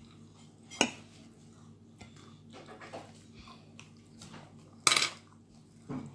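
A fork clinking and tapping against a plate, with a sharp clink about a second in and a louder one about five seconds in, and small scrapes between.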